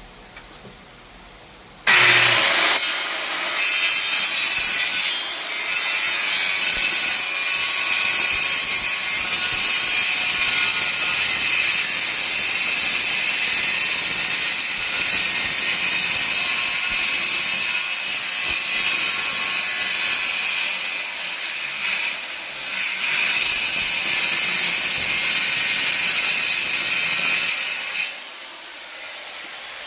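Power saw cutting notches into a wooden stretcher board. It starts about two seconds in, runs loud and steady with a few brief dips, and stops near the end.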